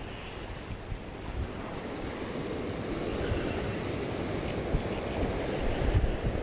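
Ocean surf washing and breaking over shoreline rocks, a steady rush of water that grows a little louder after about two seconds.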